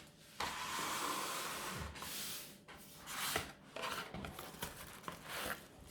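Packaging being handled as the speaker is lifted out of its box: a steady rubbing and sliding for about a second and a half, a shorter rub, then scattered light knocks and rustles.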